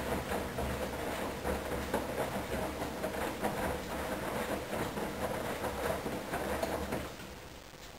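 Hoover front-loading washing machine tumbling a full load of wet sheets in the main wash: motor hum with sloshing water and soft thuds from the drum. The drum stops near the end and the sound drops away.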